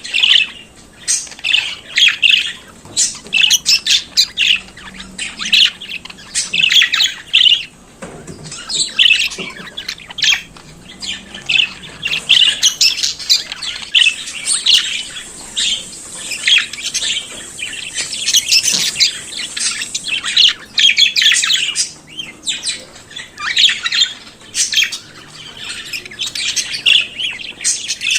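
Budgerigars chattering and warbling continuously, a dense stream of short chirps, squawks and trills with no pause.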